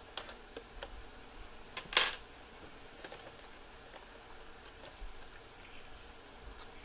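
A few light clicks and taps of small hard objects being handled, with one sharper clack about two seconds in.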